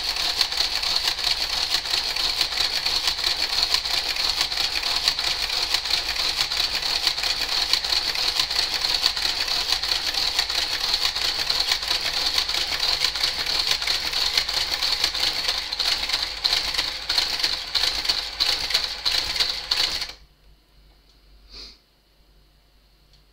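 Garter carriage on a Brother 930 knitting machine working along the needle bed during a cast-off: a motor whine under a dense, rapid clicking as it works each needle. It stops abruptly near the end.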